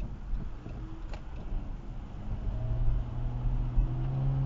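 Car driving noise picked up by a dash cam inside the vehicle: a steady low road and engine rumble. About two and a half seconds in, a steadier engine hum joins and grows a little louder.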